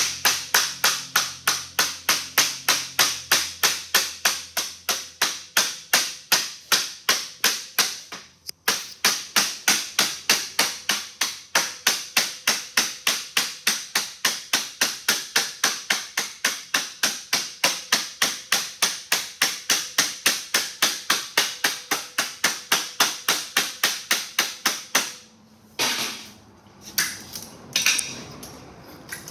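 Rubber mallet tapping 26-gauge galvanized sheet metal steadily at about three to four light strikes a second, working a one-inch bend in a tool tray handle over the edge of a clamped board. There is a short break a little over eight seconds in. The tapping stops about four seconds before the end and gives way to a few scrapes and knocks.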